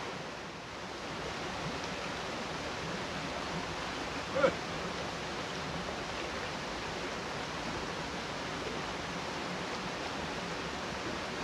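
Steady rush of flowing stream water, with one brief, sharp sound about four and a half seconds in.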